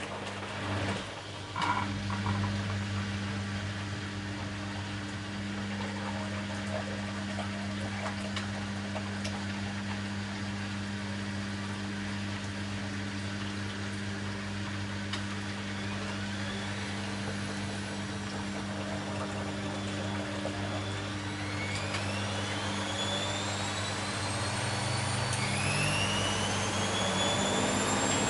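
Bosch Maxx WFL 248Y washing machine running with a steady hum, a knock or two near the start. From about two-thirds in, the motor's whine rises steadily in pitch and the sound grows louder as the drum speeds up.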